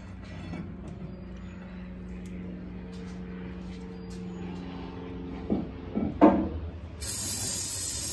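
A steady low hum, then a few sharp metal clanks about five and a half to six seconds in. Near the end an aerosol spray can starts spraying cleaner onto the rear differential's ring gear and carrier with a loud, steady hiss.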